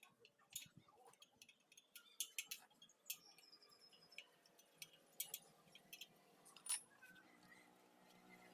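Faint, irregular light metallic clicks and ticks from hand work on a motorcycle wheel's spokes.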